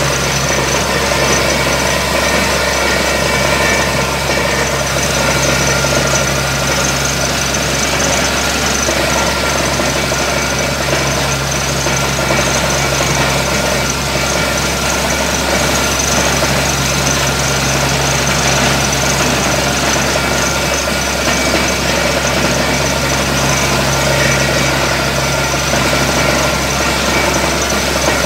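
Borewell drilling rig's engine running steadily at a constant pitch, with water gushing out of the borehole. The rig has struck a heavy water flow, about 4 inches.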